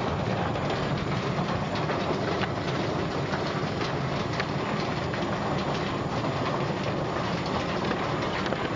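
Automatic chicken-feet peeling line running steadily: a constant low machine rumble under an even hiss, with faint scattered ticks.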